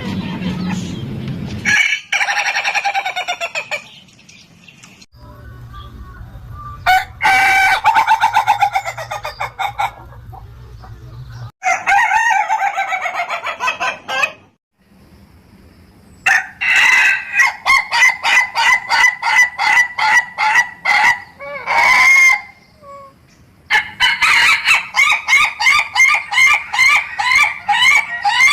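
Ayam ketawa (Indonesian laughing rooster) crowing: several drawn-out crows, then long runs of rapid, evenly repeated notes at about four a second, the breed's 'laughing' crow.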